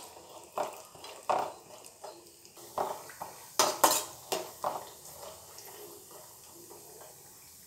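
A perforated metal skimmer scraping and knocking against a frying pan as cashews are stirred in hot oil, several strokes over the first five seconds, over a faint sizzle of frying. The stirring stops about five seconds in, leaving only the faint sizzle.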